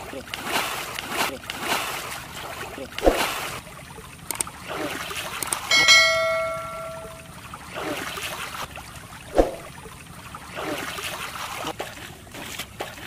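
Water splashing and sloshing as someone wades in a shallow muddy stream and pulls a hooked fish out, with two sharp knocks, one about three seconds in and one near nine seconds. About six seconds in, a bell-like chime rings and fades over a second or so: a subscribe-button notification sound.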